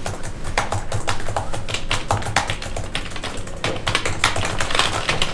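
Typing on an external computer keyboard: a steady run of quick, irregular key clicks.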